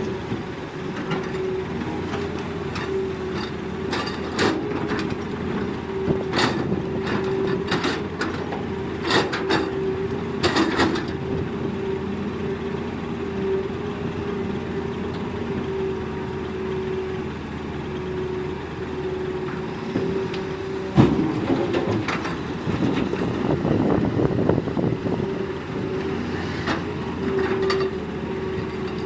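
Hitachi hydraulic excavator running under load with a steady whine, while loading soil, broken by scattered knocks and clatters. There is a sharp bang about 21 seconds in.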